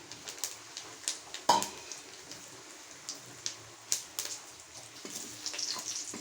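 Whole cumin seeds and bay leaves sizzling in hot oil, with scattered sharp pops and crackles as the spices temper; one louder pop about a second and a half in, and the crackling grows busier near the end.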